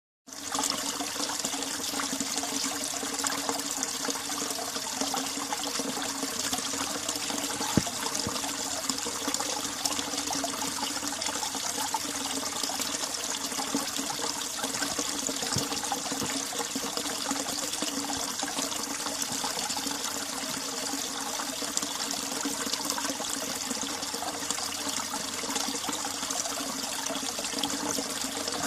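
Winter mountain stream running steadily, a constant trickling and splashing of ice-cold water, with one sharp tick about eight seconds in.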